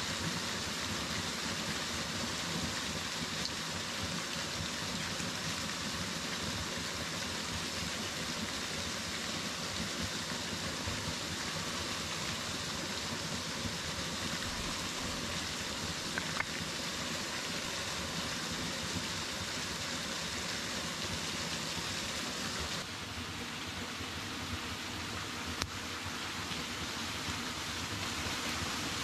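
Steady rush of a small waterfall falling onto rocks, an even noise throughout that turns slightly duller near the end, with a couple of faint clicks.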